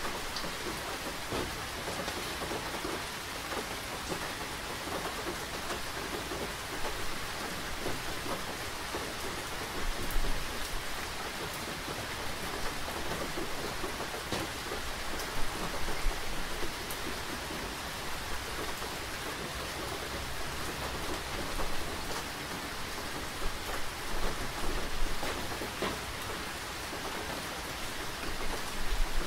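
Steady rain falling, with a few louder drops hitting now and then.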